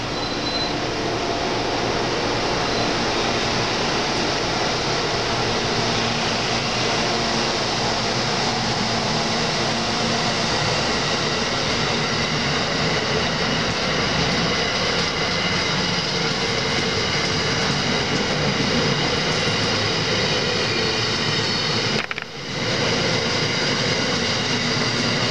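Amtrak passenger train cars rolling past on the rails, a loud, steady rush of wheel and track noise with faint high tones. The sound dips briefly about three seconds before the end.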